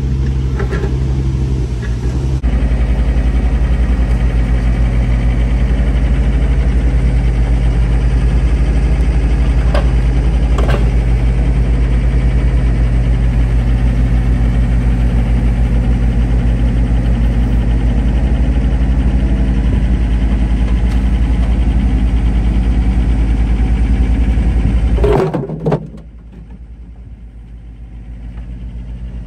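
Diesel engine of compact earth-moving machinery, a mini excavator and skid steer, running steadily at working speed, with a couple of short knocks about ten seconds in. About 25 seconds in the sound drops off sharply with a brief clatter, leaving a much quieter engine hum.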